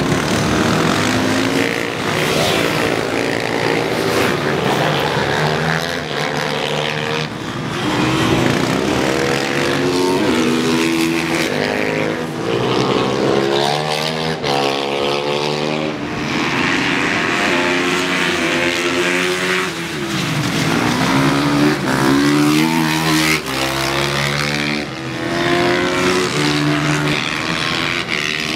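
Small SuperMini supermoto race motorcycles running at racing speed, their engines revving up through the gears and dropping back on the shifts and corners, several engines overlapping.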